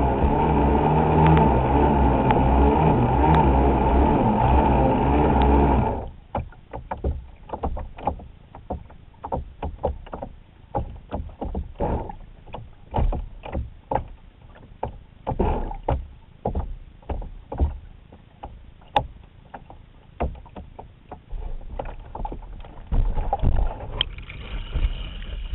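Traxxas Spartan RC boat's Leopard 3674 brushless motor and stainless prop running with a steady, wavering whine while the boat floats capsized with its prop half in the water, heard from a camera under the water. The motor cuts off suddenly about six seconds in, leaving irregular knocks and slaps of water on the hull, one or two a second.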